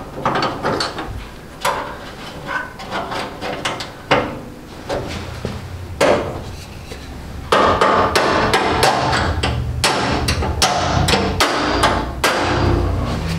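Hammer striking metal on the sheet-steel frame of a Craftsman rolling tool chest: a run of sharp taps, spaced out at first, then coming faster and louder through the second half.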